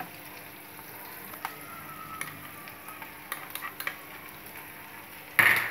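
Chopped onion and capsicum frying in oil in a pan, a soft steady sizzle. A wooden spatula scraping sauce out of a plastic bowl and stirring gives scattered light taps and clicks. Near the end comes a brief louder hiss.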